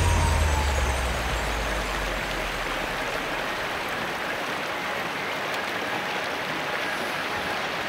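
Brook water spilling over a low weir and rushing over the rocks below, a steady, even splashing.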